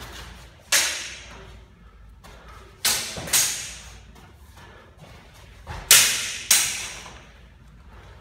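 Longsword blades clashing in sparring: five sharp clangs, each with a ringing tail, one about a second in, then two quick pairs of strikes in the middle and later.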